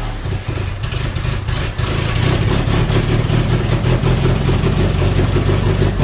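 Ford Model A four-cylinder engine running at a fast idle on a newly installed Scintilla magneto, its ignition timing not yet set. It is a little uneven for the first couple of seconds, then steady.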